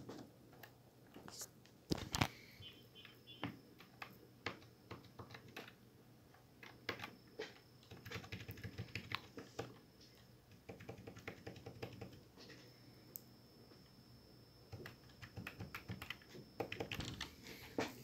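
Typing on a Corsair K68 mechanical keyboard with Cherry MX Red linear switches: irregular key presses, with runs of fast typing in several clusters and two louder key strikes about two seconds in.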